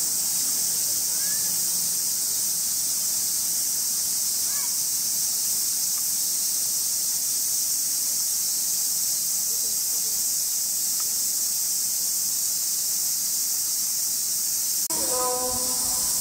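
Chorus of summer cicadas: a steady, loud, high-pitched shrill that does not let up.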